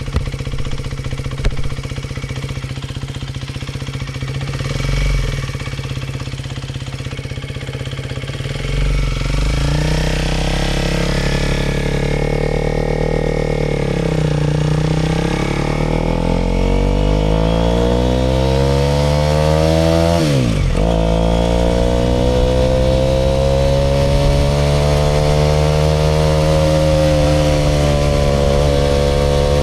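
Aprilia RS4 125's single-cylinder four-stroke engine idling for the first several seconds, then pulling away and revving up and down through the gears. The revs drop sharply and climb again at a gear change about two-thirds of the way through. Two short clicks sound near the start.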